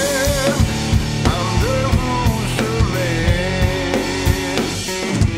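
Blues-rock band playing: a drum kit keeps a steady beat under guitar and a long, wavering sung note.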